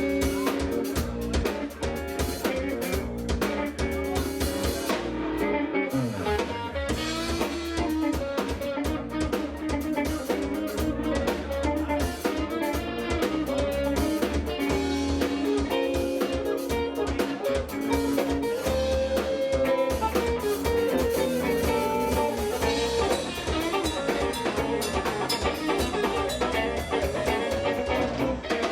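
Live band playing a jazz-funk groove: drum kit with guitar and other plucked strings, running steadily throughout.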